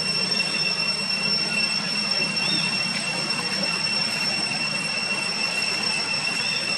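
Insects, likely cicadas, droning in one steady high-pitched tone over a constant hiss, with a couple of faint short chirps.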